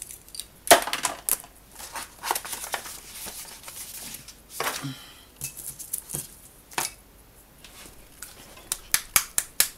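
Hands handling small items on a hobby desk: wooden clothespins, a plastic model tank track and paint supplies, giving scattered clicks, taps and short rustles, with a quick run of even clicks near the end.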